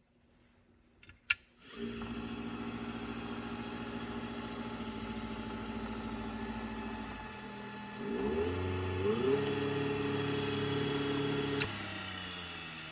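An RR45 espresso grinder's PSC motor, run from a VFD, switches on with a click and runs with a steady hum. About eight seconds in it speeds up in two steps to a higher, louder pitch. A click follows near the end, and the motor coasts down with falling pitch.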